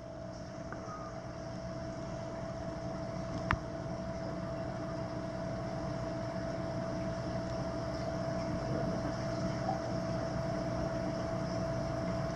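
Steady mechanical hum of aquarium equipment in a fish room, with a constant whine running under it. A single sharp click comes about three and a half seconds in.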